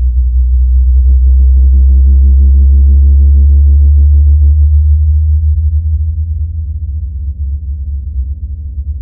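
Synthesized distortion-wave trailer sound effect: a loud, deep, distorted bass drone. From about one second in, a stack of higher buzzing tones joins it, then cuts off about four and a half seconds in, and the drone fades down slowly after that.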